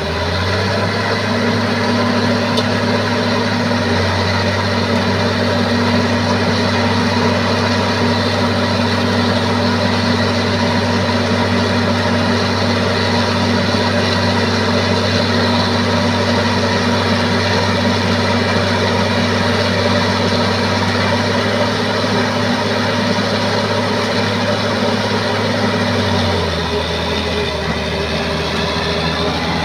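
Bulldozer's diesel engine running hard as it pulls a stuck log, its deep drone stepping up just after the start, holding steady, then easing back down near the end.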